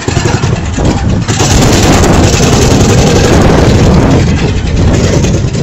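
Engine of a small open ride-on vehicle running as it drives along, loud and rough, rising over the first second and then holding steady.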